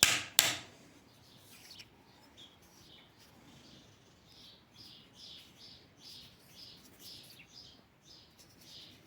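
Two sharp knocks right at the start, then faint bird chirps repeating about three times a second through the second half.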